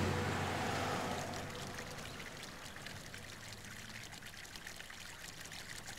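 A truck passing on the road fades away over the first second or two, leaving a faint, steady trickle of water running from a culvert pipe.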